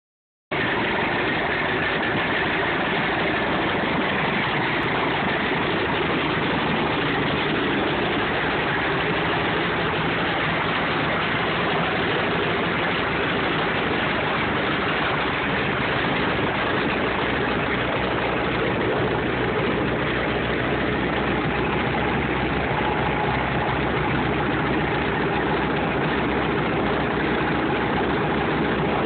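Biplane's radial engine running steadily at idle on the ground, its propeller turning.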